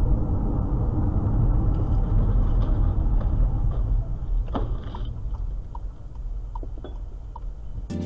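Dashcam audio of a car driving on a highway: a steady low rumble of road and engine noise heard inside the cabin. About four and a half seconds in there is a single sharp knock, followed by a few faint short ticks, and the rumble eases off.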